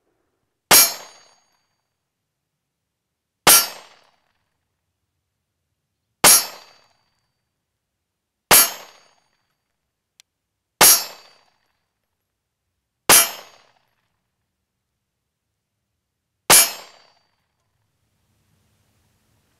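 Seven single shots from a Springfield Armory XD-S 9mm pistol, fired slowly, each followed by a short ringing tail. They come about two to three seconds apart, with a slightly longer pause before the last.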